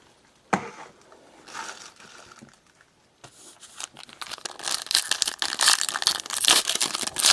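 Crinkly plastic wrapper of a trading-card pack being torn open and crumpled. A sharp click comes about half a second in, then a dense run of crackling crinkles builds over the last few seconds.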